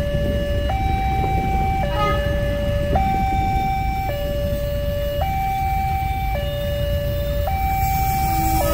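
Level-crossing warning alarm sounding a two-tone electronic signal that switches between a low and a high note about once a second, over a steady low rumble as a diesel-hauled train approaches.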